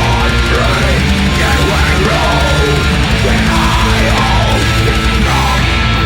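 Heavy metal band playing loudly and continuously, with distorted electric guitars.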